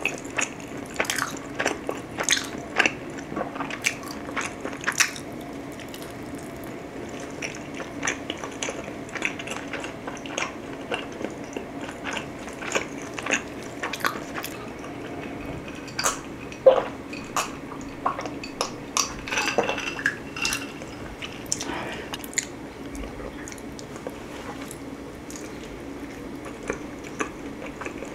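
Chewing and biting into pizza close to a microphone: many short, sharp clicks and crunches come irregularly, several a second at times.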